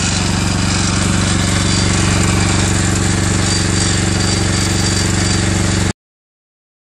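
Ammann AFW150G mini asphalt paver running at work: a loud, steady engine note with a fast rattling pulse over a broad mechanical noise. It cuts off abruptly about six seconds in.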